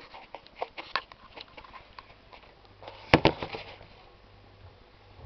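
Clicks and rustles of things being handled, then a refrigerator door shutting with a loud thud about three seconds in, followed by a low steady hum.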